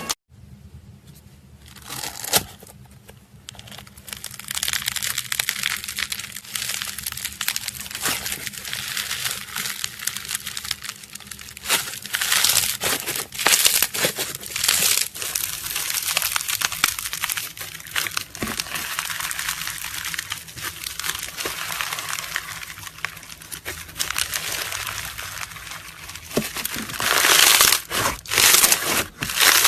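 Slime being squeezed and stretched by hand, making dense crackling and popping. It starts quietly, turns continuous a few seconds in and is loudest near the end.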